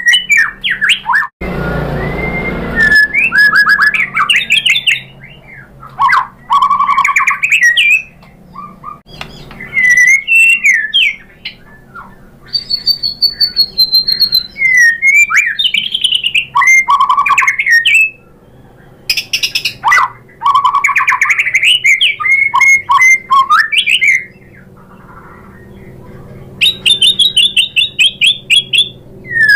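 White-rumped shama (murai batu) singing an agitated, varied song: whistled glides, fast repeated notes and harsh squawks in bursts with short pauses between. A short burst of hiss-like noise comes about two seconds in.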